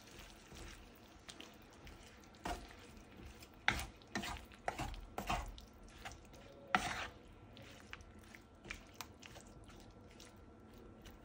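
Wooden spatula stirring beef, eggplant and cherry tomatoes in a nonstick frying pan: a run of scrapes and soft knocks against the pan, loudest from about two to seven seconds in, over a faint sizzle.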